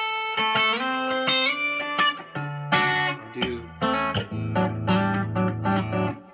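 Fender Telecaster electric guitar playing a rhythm-guitar passage of picked chords and single notes, with a note sliding up about a second and a half in. In the second half a low note rings under short, repeated higher notes.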